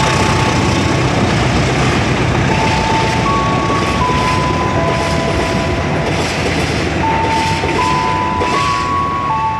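Coaches of the KA Menoreh passenger train running through the station at speed without stopping: a loud, steady rolling and rushing of wheels on rail with a clickety-clack, easing slightly near the end as the train draws away.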